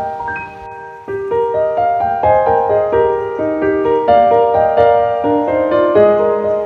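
Background piano music: a gentle melody of ringing notes. It goes quieter for about the first second, then the piano comes back in.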